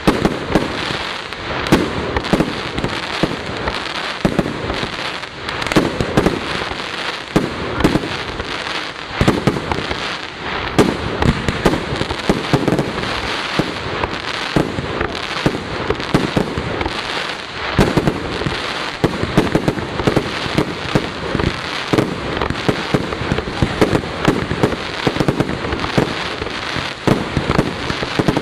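A fireworks display in a sustained barrage: dense, continuous bangs and crackling with several reports a second and no let-up.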